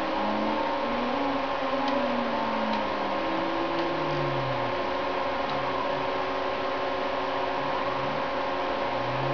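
Stepper motors driving a Sherline mill's table axes under CNC control, their whine gliding up and down in pitch as the moves speed up and slow down, over a steady hum.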